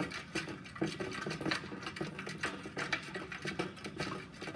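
A mixing utensil stirring borax into cold water in a cut-glass bowl, clinking and scraping against the glass in a steady rhythm of a few strokes a second, while the borax is dissolved to make slime activator.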